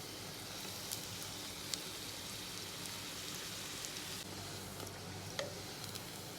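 Sooji puris deep-frying in hot oil: a steady sizzle with a few sharp pops, louder for the first few seconds.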